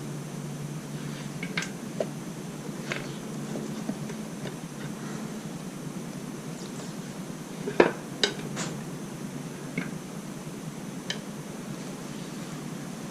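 Scattered metallic clinks and knocks, like hand tools being handled and set down, about nine in all. The loudest comes about eight seconds in, over a steady low hum.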